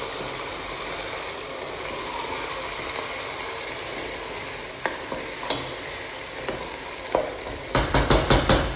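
Tomato stew with gizzard and fish sizzling in a pot while a wooden spoon stirs it, with a steady frying hiss. A few sharp clicks come in the second half, and a quick run of about five loud knocks comes near the end.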